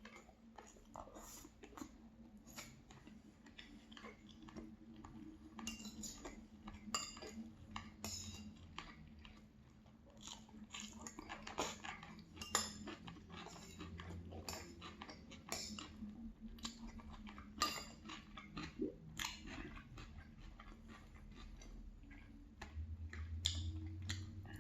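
Chewing with scattered clinks and scrapes of cutlery on a plate, over a faint steady low hum.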